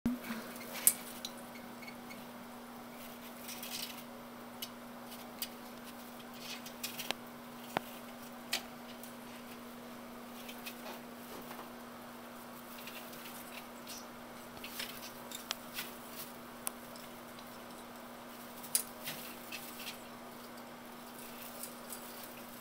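Dry twig branches of a Christmas tree rustling and crackling as a cat clambers through them, with scattered sharp ticks and clicks at irregular intervals and a few short bouts of rustling.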